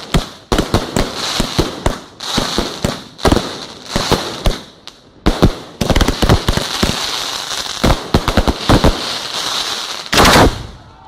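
Fireworks display: a rapid, irregular run of aerial shell bursts and crackling, with a hiss of burning effects behind it. There is a short lull about halfway through, and the loudest burst comes about ten seconds in.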